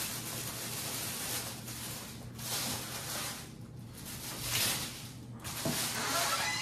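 Tissue paper rustling and crinkling as it is pulled open inside a shoe box, coming in several swells.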